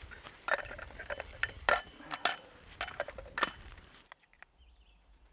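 Metal utensils clinking and scraping against cookware: a run of sharp clinks through the first three and a half seconds, then it goes much quieter.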